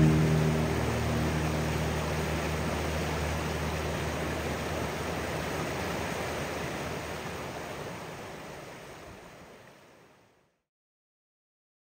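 Rushing water of a shallow river rapid pouring over boulders: a steady hiss that fades out about nine to ten seconds in, leaving silence.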